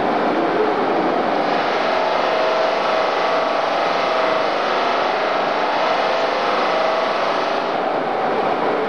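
Automatic polishing machine's motor-driven wheel spinning against a tubular metal seat frame: a steady machine hiss with a faint motor whine.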